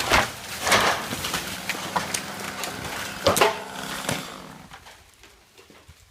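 A sawn tree cracking and coming down: a run of sharp wood snaps and crackling branches over about four seconds, fading out near the end.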